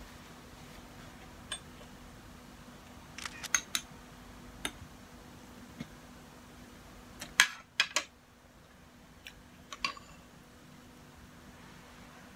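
Spoon and fork clinking against a bowl and plate while eating: scattered sharp clinks, the loudest a quick group of three about seven to eight seconds in, over a faint steady hum.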